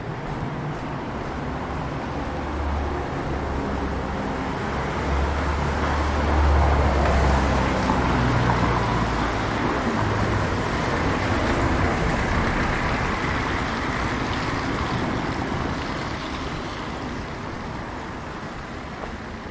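A motor vehicle passing close by: its engine rumble and tyre hiss swell over several seconds, peak about halfway through, then fade away.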